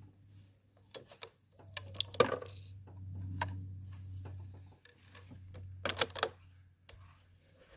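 Metallic clicks and clinks from handling the rifle and its cartridges, the sharpest about two seconds in and a quick cluster about six seconds in, over a low steady hum.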